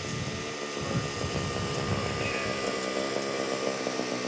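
Radio-controlled scale model airplane's engine running steadily in flight as it comes in for a forced landing, with a low rumbling noise underneath in the first half.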